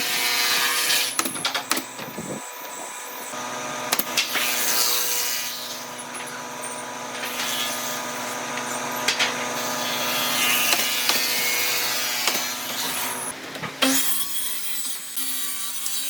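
A power tool working solid wood: a steady motor hum with the noise of the wood being cut or abraded, and scattered sharp knocks.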